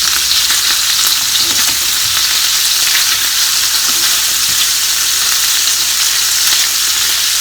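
Tofu hamburg steak patties sizzling steadily in a frying pan, the water added for steaming almost cooked off.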